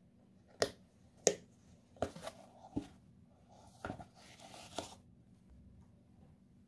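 Hands handling a folding sunglasses case: a series of sharp clicks and taps, the two loudest early on, then a short rustling slide as the case is unfolded and set down.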